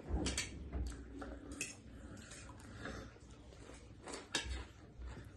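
Eating utensils clinking against bowls and plates during a meal of ramen: a scatter of light clinks, the sharpest near the start and about four seconds in.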